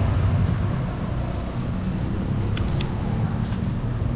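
Steady street traffic noise: a continuous low engine rumble from road vehicles, with a couple of faint clicks about two and a half seconds in.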